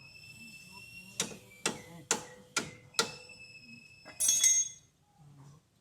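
Metal struck five times, about half a second apart, each strike leaving a ringing tone, then a short clatter of clinking metal about four seconds in.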